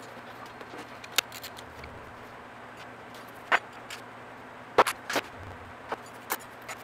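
A scattering of short, sharp clicks and knocks, about seven in all, the loudest near the middle, over a steady low hum.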